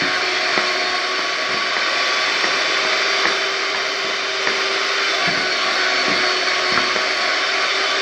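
Electric hand mixer running steadily, its beaters whisking a thick custard-and-cream mixture in a bowl.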